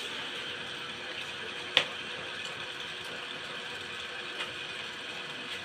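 Utensil against a ceramic bowl during a meal: one sharp clink about two seconds in, then a couple of faint ticks, over a steady hiss.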